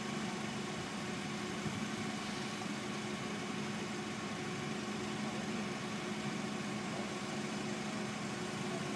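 Propane forklift engine idling with a steady, even hum.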